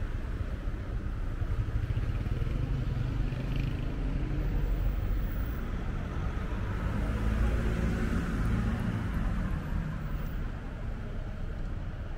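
Street traffic: cars running by on a residential street over a steady low rumble, growing a little louder around the middle.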